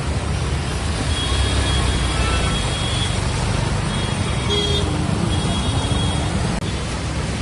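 Road traffic driving through a flooded street: a steady low engine rumble under a continuous rush of water and tyre noise, with a few faint horn toots.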